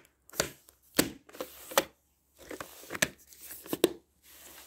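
A VHS tape being put back into its case by hand: a series of sharp plastic clicks and knocks with some rustling between them, the loudest clacks about three and four seconds in.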